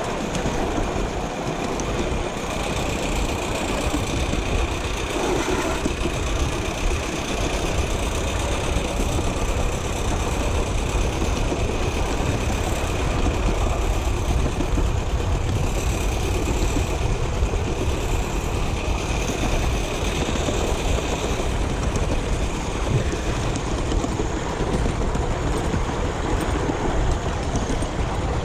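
Miniature ride-on steam train running: a steady rumble of the locomotive working and its wheels on the rails.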